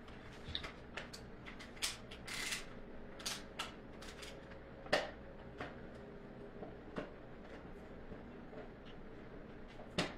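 Faint, irregular clicks and taps with a brief rustle, the sharpest click about five seconds in.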